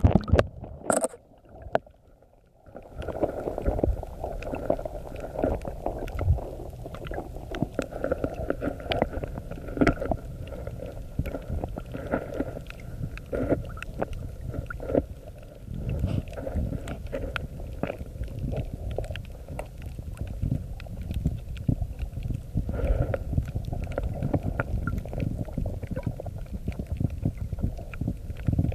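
Muffled underwater sound through a phone's microphone: after a couple of seconds of near silence, a low rumble of moving water with many scattered clicks and crackles and a faint steady high hum.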